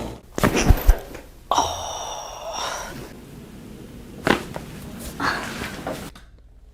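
A chiropractic adjustment: a quick cluster of sharp cracks and thuds about half a second in, then one single sharp crack a little after four seconds and a weaker one about a second later.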